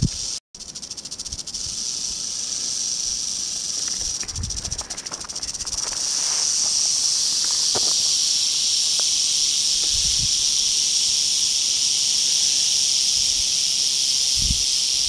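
Western rattlesnake (Crotalus oreganus) rattling its tail: a continuous, high, hiss-like buzz that grows louder about six seconds in. This is the snake's defensive warning. A few soft low thumps sound now and then.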